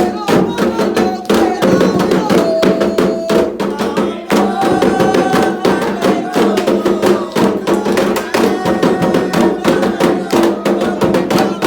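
Candomblé atabaque hand drums playing a fast, continuous toque for Oxumarê, with voices singing a chant over the drumming.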